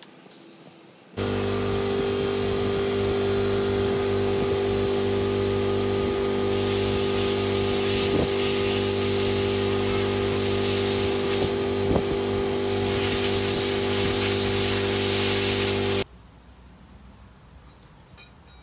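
An air compressor running with a steady hum, and a compressed-air blow gun hissing in two long blasts, from about a third of the way in to near the end with a short break, as carburetor jets are blown out. The hum and hiss cut off together near the end.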